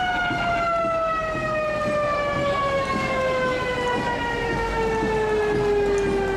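A fire engine's mechanical siren winding down: one long, slow fall in pitch after a rise just before, coasting rather than cycling. A truck engine rumbles low underneath from about midway.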